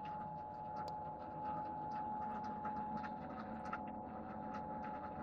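1T61M lathe running, with a steady whine and irregular light ticks.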